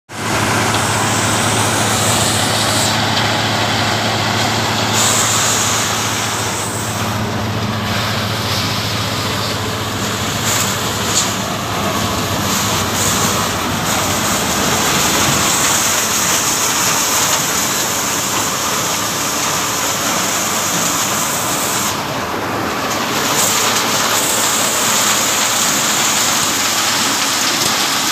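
Tractor-powered maize thresher running under load: a steady tractor engine hum, clearer in the first half, under a dense, even rushing noise of cobs being threshed and shelled grain pouring out.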